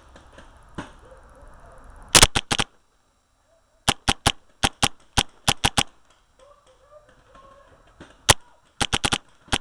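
Paintball marker firing in quick strings of sharp pops: a short burst about two seconds in, a faster run of about eight shots a few seconds later, then a single shot and a last quick burst near the end.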